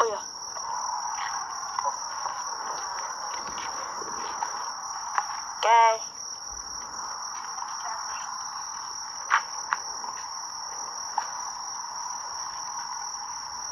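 A steady high-pitched insect chorus drones on unbroken over a faint hiss. About six seconds in, a short high voice cry is the loudest sound, and a few sharp clicks come later.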